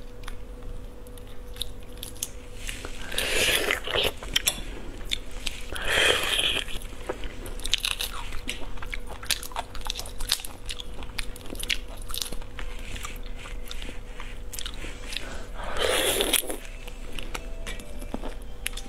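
A large cooked prawn's shell being cracked and peeled off by hand, giving many sharp little cracks and clicks with three louder crunching bursts, about three and a half seconds in, around six seconds in and near sixteen seconds in.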